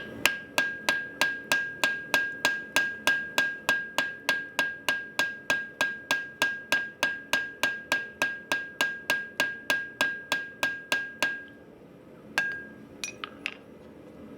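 Blacksmith's hand hammer striking hot steel on an anvil in a steady rhythm, about three blows a second, each with a bright anvil ring, reshaping a hammer head's eye over a drift. The blows stop about eleven seconds in, followed by one more strike and a few light taps.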